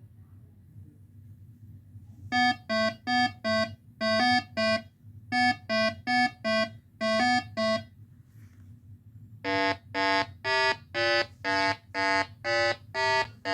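Electronic buzzer-like beeps, first in quick groups on a single pitch, then after a short pause a run of about two beeps a second stepping up and down like a simple tune, over a low steady hum.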